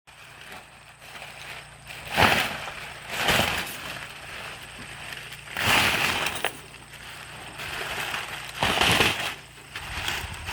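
Plastic tarp crinkling and rustling as it is handled, in several short bursts.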